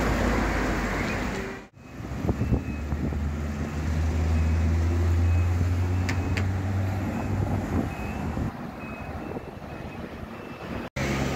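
Road traffic: car engines and tyres passing close by, with a deep engine drone building and fading in the middle. Faint high beeps repeat about once a second.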